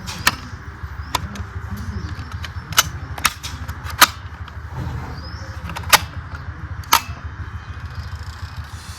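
Steady low engine-idle sound, likely from the diecast Toyota Alphard model's built-in sound module, with about seven sharp clicks scattered through it.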